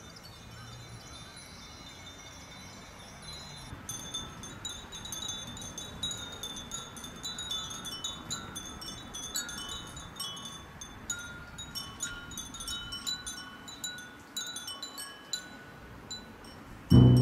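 Many glass furin wind chimes hanging from a wooden frame, tinkling in the breeze: faint at first, then from about four seconds in a busy jangle of overlapping high pings at several pitches. Right at the end a sudden, much louder low ringing note comes in.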